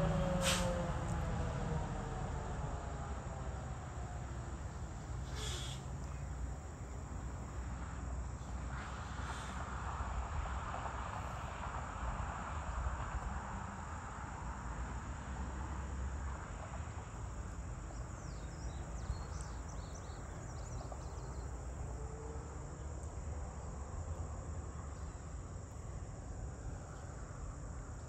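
Crickets and other insects chirping in a steady evening chorus over a low rumble. In the first couple of seconds, the horn of a passing freight train falls in pitch and fades away.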